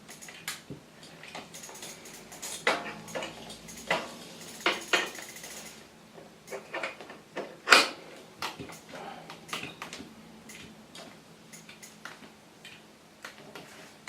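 Metal tools clinking and knocking as an adjustable spanner turns a crank removal tool to pull a stiff square-taper crank arm off the bottom bracket. Irregular sharp metallic clicks, with one louder knock a little past halfway.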